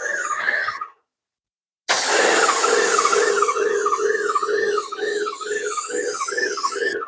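Airless paint sprayer running while spraying: a whine that wavers up and down in pitch about twice a second with each pump stroke, over a steady lower hum and the hiss of the spray. It drops out abruptly about a second in and comes back just under a second later.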